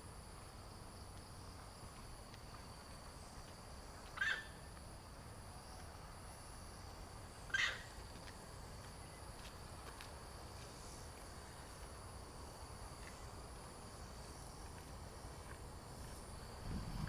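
Two short high-pitched animal calls, about three seconds apart, over a faint steady outdoor hiss.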